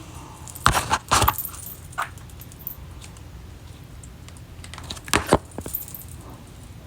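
Small hard objects clicking and clattering as they are handled and set down, in two short clusters: one about a second in and another about five seconds in.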